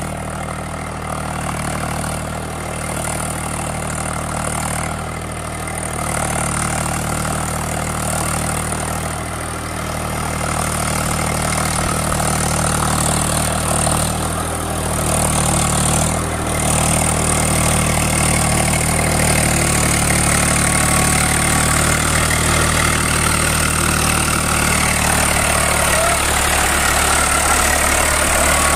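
Eicher 380 tractor's diesel engine running steadily as the tractor drives through a flooded paddy field on cage wheels, growing louder as it approaches.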